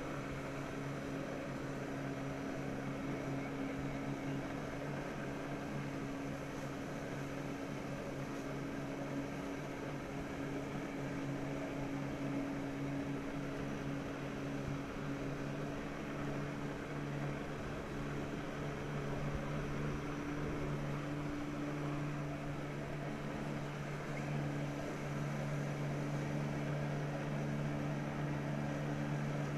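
A personal watercraft engine driving a flyboard's water jets: a steady engine drone over a hiss of rushing water, growing slightly louder about two-thirds of the way through.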